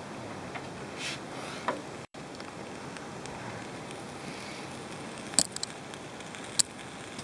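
Kebab burgers sizzling on a portable gas grill under its closed lid: a steady hiss, with a few sharp clicks, two of them near the end.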